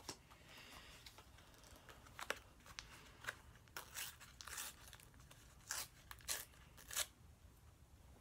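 Paper stickers and their backing rustling and tearing as they are handled, in several faint, short crackles.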